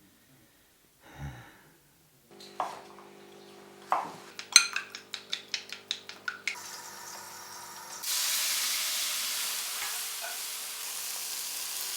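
Sharp clicks, at first scattered and then in a quick run of about three a second, over a faint steady hum. About eight seconds in, a loud, steady sizzling hiss takes over.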